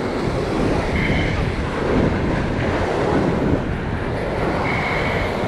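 Steady rushing of wind buffeting the microphone over waves breaking and washing against the rock ledge.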